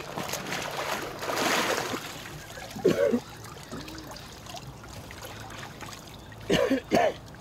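River water splashing and trickling as a person is dipped into it, loudest a second or two in, then settling into a faint running trickle.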